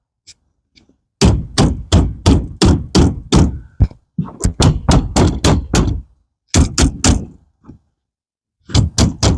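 Rubber mallet tapping a pet screen into the channel of a pet door frame to seat it: runs of quick thuds, about three or four a second, broken by short pauses.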